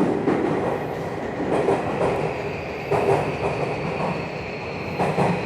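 Cabin running noise of a Tokyu 3020 series electric train: a steady rumble with irregular clacks of the wheels over rail joints, and a faint high whine entering about two seconds in.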